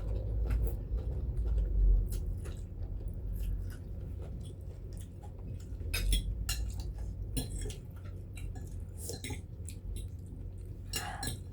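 Cutlery clicking and scraping against plates in many short, irregular clinks, with chewing mixed in, as people eat noodles.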